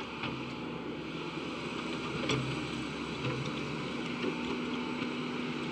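Excavator's diesel engine running steadily as the trapezoid ditching bucket works the ditch, with a few short knocks, the loudest about two seconds in.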